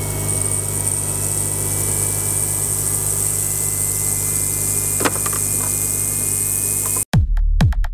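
Digital ultrasonic cleaner running with petrol fuel injectors soaking in its bath: a steady high hiss over a low hum. A short click about five seconds in; near the end it cuts off suddenly and electronic music with a beat comes in.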